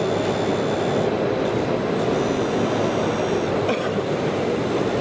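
Steady din of a busy exhibition hall. Over it is a faint high whine from the RC scale truck's hydraulic pump, in two stretches, about a second long near the start and again from about two seconds in, as the model's loader crane and stabiliser leg move.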